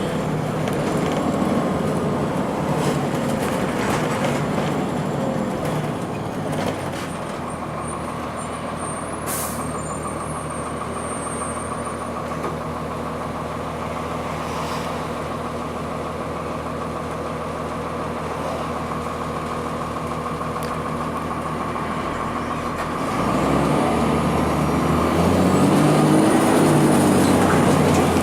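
Cummins ISC diesel engine of a 2002 Blue Bird CS transit bus running steadily. It eases off about seven seconds in, then revs up again with rising pitch about 23 seconds in as the bus pulls harder.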